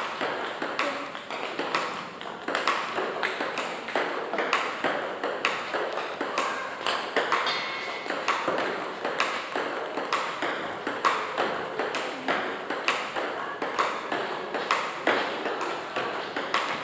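Table tennis balls striking bats and tables: many sharp clicks, several a second, in an irregular overlapping patter.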